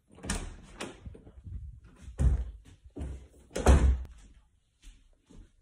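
A run of irregular dull knocks and thumps, the loudest about two and a quarter and nearly four seconds in.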